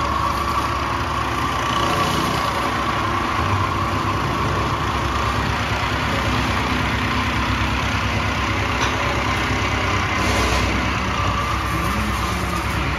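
CTEC mattress tape edge machine running as its sewing head stitches tape around the mattress edge: a steady mechanical run with a fast, even stitching chatter and a whine that fades partway through and returns near the end.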